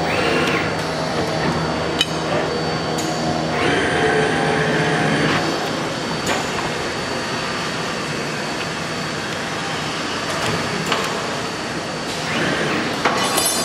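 CNC tube-bending machine running, a steady hum with metallic clicks and knocks and several bursts of hissing or whirring, each lasting a second or two, as it works the tube.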